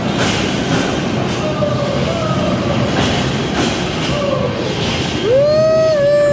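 Hand-pumped railway handcar (draisine) rolling along the track, its steel wheels rumbling steadily on the rails. About five seconds in, a loud, long, steady hoot starts up over it.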